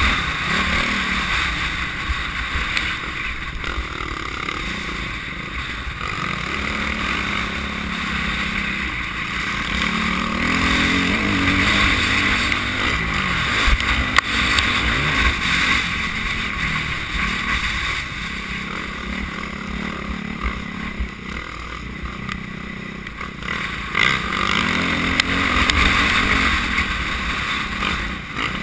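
Motocross bike engine heard from a camera mounted on the bike, the revs rising and falling again and again through the gears on a dirt track, with wind rushing over the microphone.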